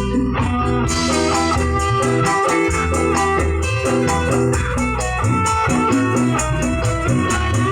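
Loud band music with guitar and a steady bass-heavy beat.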